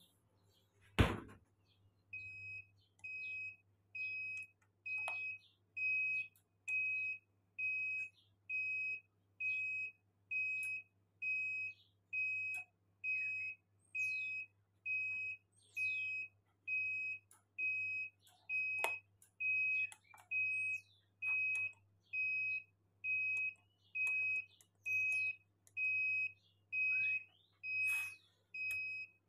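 Digital incubator controller's alarm buzzer beeping: short, high, single-pitched beeps repeating evenly a little more than once a second, over a steady low hum. A single sharp knock comes about a second in, before the beeping starts.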